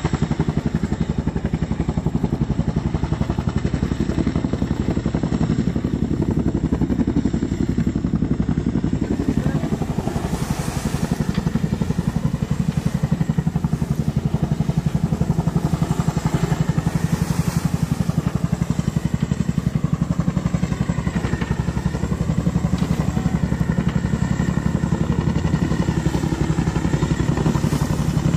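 MH-47G Chinook tandem-rotor helicopter hovering low: a loud, steady, rapid thumping of the rotor blades over the whine of the engines. A hiss of rotor wash blasting spray off the water grows louder about ten seconds in.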